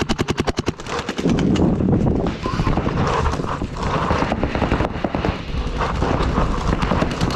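Paintball markers firing rapid strings of shots, about ten a second in the first second, then scattered shots.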